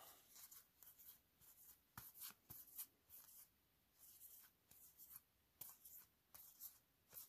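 Magic: The Gathering cards and their packaging being handled: faint, scratchy rustling and sliding, with a few light taps about 2 seconds in, about 5.6 seconds in and near the end.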